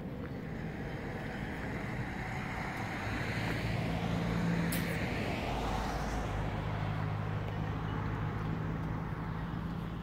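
A motor vehicle passing close by: a rush of noise that builds to a peak about halfway through, then a steady low engine hum that carries on to the end.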